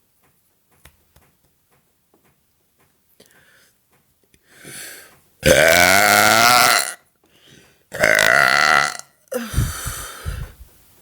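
A woman's big forced belches: two long, loud burps of about a second and a half each, with a wavering pitch, starting about five and a half and eight seconds in, then a shorter, rougher one with a low rumble.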